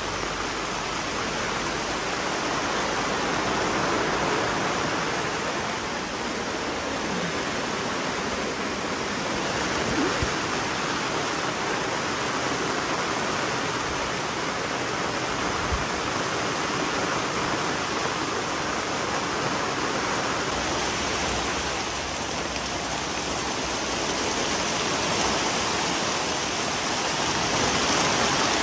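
Heavy rain pouring down in a steady downpour, a dense, unbroken hiss of falling and running water.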